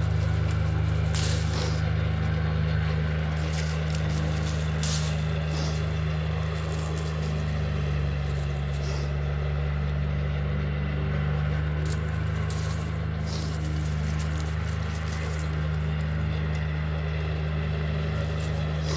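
A steady low mechanical drone, like a motor running, with a few faint light clicks.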